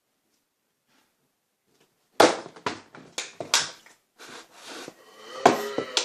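Dead silence for about two seconds, then a run of sharp thuds about half a second apart, with another hard hit near the end.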